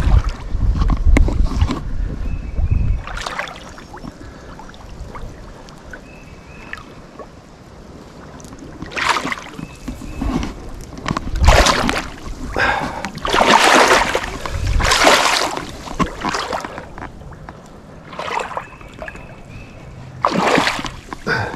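Creek water splashing and sloshing around a person's legs as he wades in, in irregular surges. A low rumble fills the first few seconds.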